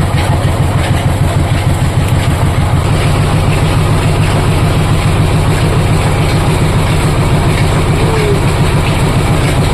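Oil expeller (screw oil press) running steadily, with a loud, fast, even low throb.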